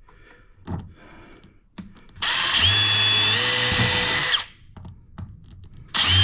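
Power drill boring pilot holes for blind-mounting bracket screws: after a quiet start, it runs for about two seconds, its pitch stepping up partway through as it speeds up, then starts again near the end.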